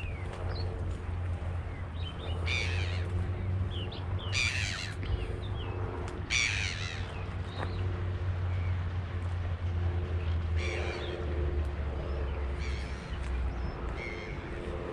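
Birds giving loud, harsh, caw-like calls, about six of them spread through, over a steady low hum.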